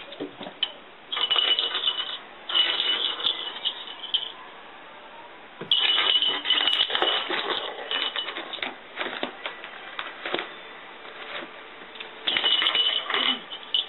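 Small bells jingling in several irregular bursts, the longest near the middle, as a cat bats and plays with them.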